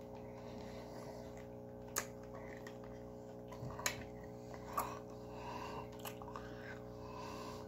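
Faint mouth sounds of hard sour candy being sucked and worked in the mouth, with a few sharp clicks (about two, four, five and six seconds in) over a steady low hum.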